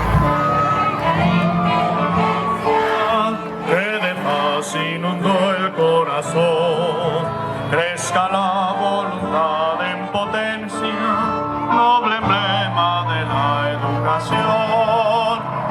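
Music with a man singing, his voice wavering in a wide vibrato over instrumental accompaniment.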